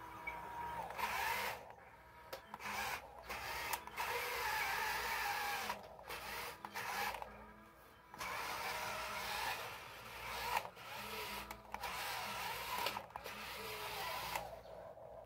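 Electric drive motors and gearbox of a toy RC wheel loader whining in short stop-start runs, cutting out and starting again many times, the pitch shifting as the throttle changes.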